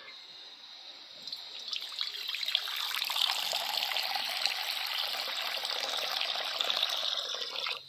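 Running water pouring in a steady stream. It builds up over the first couple of seconds, then cuts off suddenly near the end.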